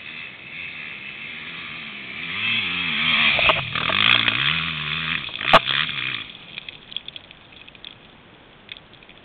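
Enduro dirt bike engine revving hard as it climbs toward the camera, the revs rising and dropping with gear and throttle, loudest as it passes close by, then fading away. Two sharp cracks come as it passes, the second the loudest moment.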